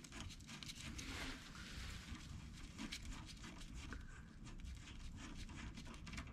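Faint rustling and scattered small clicks of gloved hands and a microfiber rag working at a brake caliper's brake-line fitting.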